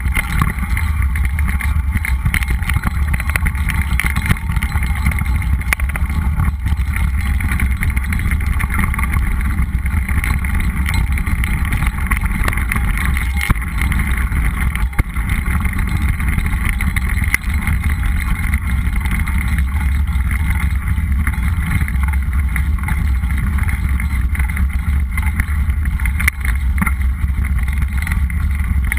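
Wind buffeting a mountain bike's action-camera microphone, over the rumble and rattle of the tyres rolling on a loose dirt trail, steady throughout with a few small knocks.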